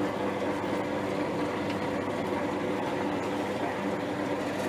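Motor-driven spin extractor running steadily with a humming drone, spinning the water out of boiled ramie (gai) leaves.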